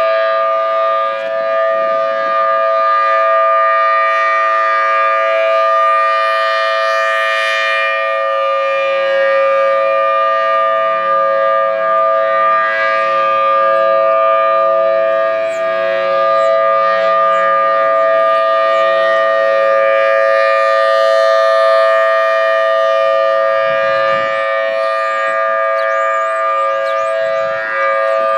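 Federal Signal Thunderbolt 1000T tornado siren sounding a loud, steady tone in a test, its pitch holding level throughout.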